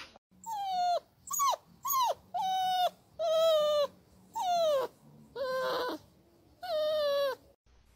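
Small curly-coated dog whining in a run of about eight high-pitched, drawn-out cries, each falling in pitch at the end, with short pauses between them.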